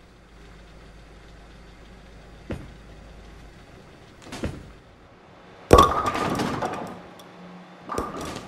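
A few scattered knocks and thuds. The loudest is a sharp bang about six seconds in, followed by about a second of rushing noise, and another knock comes near the end.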